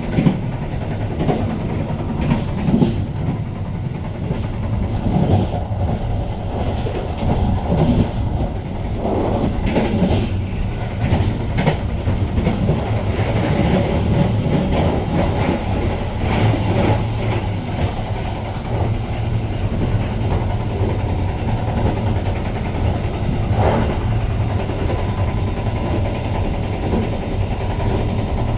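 Argo Bromo Anggrek passenger train running along the track: a steady low rumble with scattered sharp clacks of the wheels over the rails at uneven intervals.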